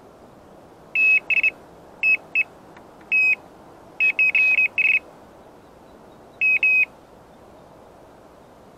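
Electronic carp bite alarm on the rod beeping in irregular runs of short, high, identical tones, quickest in a burst about four seconds in, as line is pulled over its sensor: a fish taking the bait.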